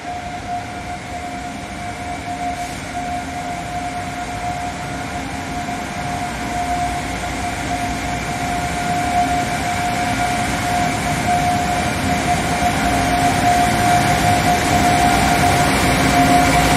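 Double-headed electric locomotives hauling an intermodal freight train, approaching and starting to pass: a steady whine over a rumble of wheels on rail that grows gradually louder.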